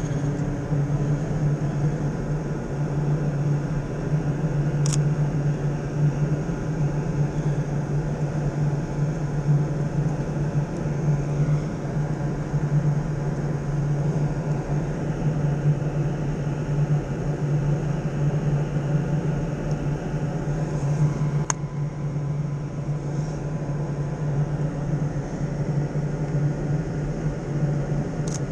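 A steady low mechanical hum, like an idling engine or a running fan, unbroken throughout, with a couple of faint sharp clicks.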